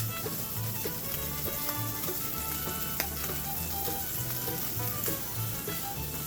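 Trout frying in a pan on a camp stove, a steady sizzle, with background music under it and a single sharp click about halfway through.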